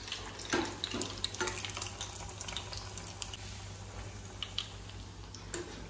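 Potato patties (aloo tikki) frying in shallow oil in a pan: a soft, steady sizzle with scattered crackles and a few light clicks.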